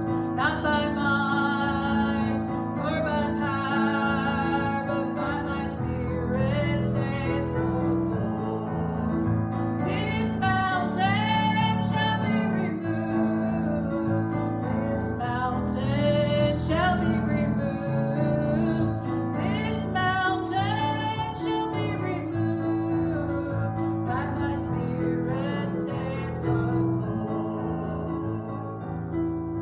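A slow sacred song: a solo voice singing with vibrato over piano accompaniment, easing down in volume near the end.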